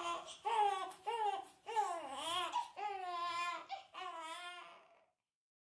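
Newborn baby crying in a string of short, wavering, high-pitched wails, about six of them, which stop abruptly about five seconds in.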